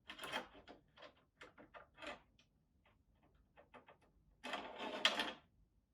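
Small clicks and rattles of PC parts and hardware being handled, with a louder rustle lasting about a second, about four and a half seconds in.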